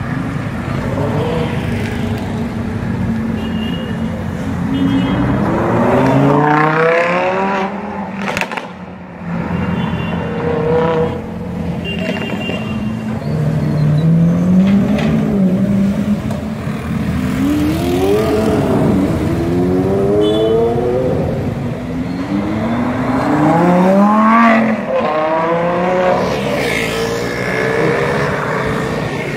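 Sports car engines revving hard and accelerating, three times in a row, the pitch climbing steeply with each burst, over steady street traffic noise.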